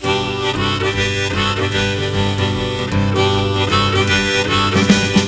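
Background music: a song's instrumental intro led by harmonica over guitar.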